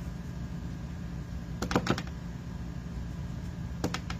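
A few quick light clicks or taps: a cluster of three or four about a second and a half in, and two more near the end, over a steady low hum.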